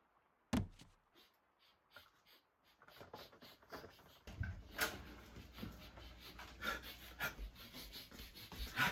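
A sharp click, then faint sounds of a man getting up and moving about: scuffs and knocks, and from about halfway on heavy breathing over a low rumble.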